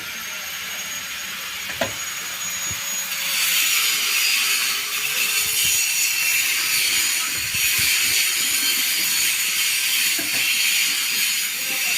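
Mini excavator travel drive turning with a steady rubbing hiss that gets louder about three seconds in: the travel-drive noise being diagnosed. A single click sounds about two seconds in.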